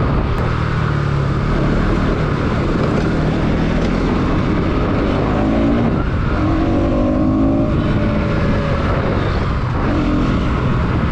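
Bajaj Pulsar NS200's single-cylinder engine running on the move under light throttle, its pitch shifting up and down, over a heavy rush of wind and road noise.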